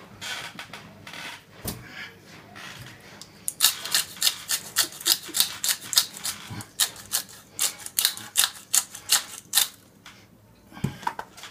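Hand-twisted salt or pepper mill grinding over a steak: a quick series of crunchy, ratcheting clicks, about three a second, that starts a few seconds in and goes on for about six seconds.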